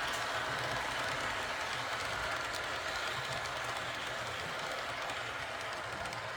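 Model train running along the layout's track: a steady rolling rumble of wheels on rail with faint scattered clicks, slowly getting quieter.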